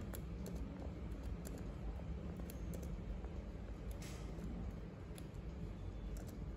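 Faint, irregular clicks of laptop keys being pressed to re-enter a terminal command, roughly once a second, over a steady low hum.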